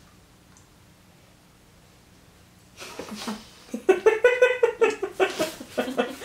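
A woman laughing and making vocal sounds muffled by an LED teeth-whitening mouthpiece held in her mouth, starting about three seconds in after a quiet stretch.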